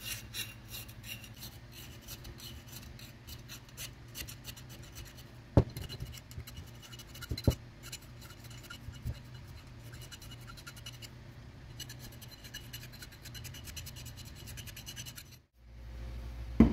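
Flat hand file scraping over the steel bit of a small axe head in short, rapid rasping strokes. About a third and half-way through come two sharp knocks, the loudest sounds.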